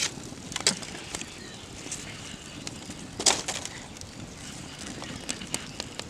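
Wood fire crackling, with irregular sharp pops over a steady hiss; the loudest pop comes a little over three seconds in.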